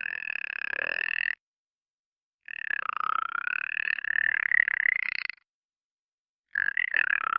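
Alien creature voice sound effects: three separate gravelly calls, the first ending about a second in, the second lasting about three seconds with a pitch that dips and then rises, and the third starting near the end, each cut off into dead silence.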